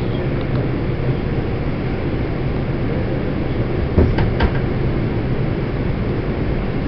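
Subway car running, heard from inside the car as a steady rumble and hiss with a low hum. Two short sharp knocks come about four seconds in.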